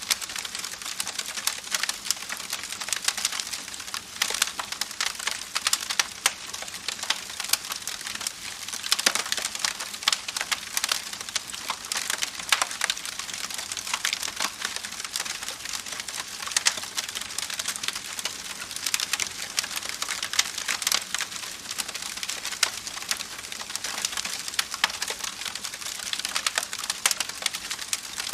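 Campfire crackling: a dense, continuous run of small pops and snaps over a soft hiss.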